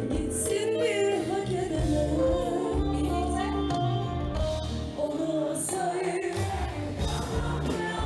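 A woman singing lead with a live band playing behind her.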